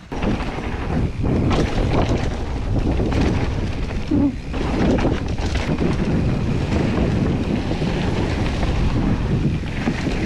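Wind rushing over the microphone of a mountain bike riding fast down a trail, with scattered knocks and rattles from the bike over rough ground.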